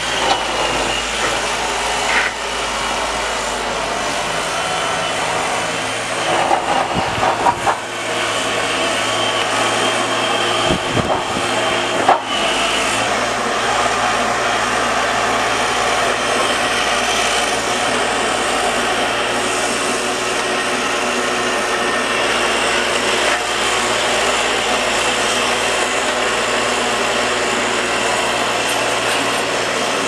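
Steady engine drone of snow-clearing machinery running, with a few brief louder irregular sounds between about six and twelve seconds in.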